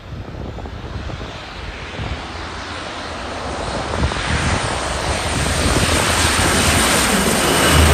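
Aircraft engine noise growing steadily louder as a plane approaches, with wind buffeting the microphone.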